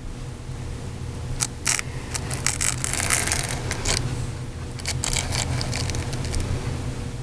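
Handling noise: irregular clicks, scrapes and crackles from about a second in until past the middle, over a steady low hum.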